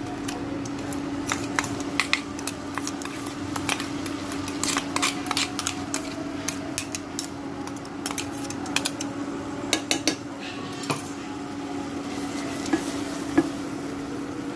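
A plastic spoon stirring and scraping a frying potato-and-tomato curry base in a nonstick kadai, with irregular clicks of the spoon against the pan over a light sizzle. A steady hum from the induction cooktop runs underneath.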